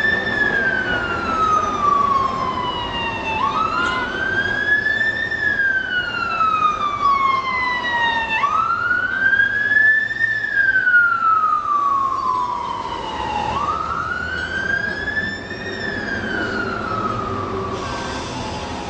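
Siren wailing: a pitched tone that climbs quickly, then slides slowly down, repeating about every five seconds over a low background rumble.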